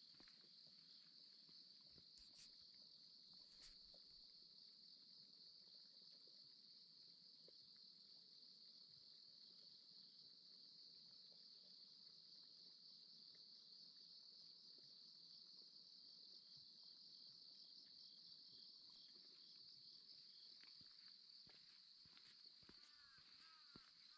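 Faint, steady high-pitched insect chorus, crickets or similar, trilling without a break, with faint footsteps on a path under it and a few short chirps near the end.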